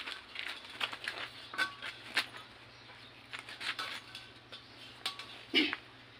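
Irregular metallic clinks and knocks as a steel tank made from an old LPG cylinder is handled by its welded handle and moved onto its metal stand. A heavier knock about five and a half seconds in is the loudest.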